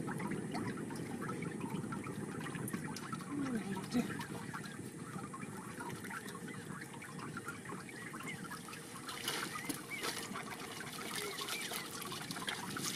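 Water trickling and dripping from a wet mesh fishing net as it is handled and untied.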